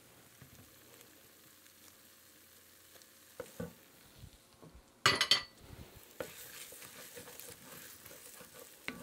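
A wooden spoon stirs tomato paste and crushed garlic frying in an enamelled pan, with soft scraping and a light sizzle as the paste is fried down to caramelize. A couple of light knocks come a few seconds in, then a brief loud burst of sizzle and scrape about halfway through, after which steady stirring and sizzling go on.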